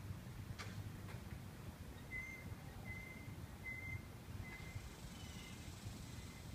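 Faint outdoor ambience: a low steady rumble, two light clicks in the first second, then a run of about five short, high whistled notes, all at one pitch, beginning about two seconds in and growing fainter.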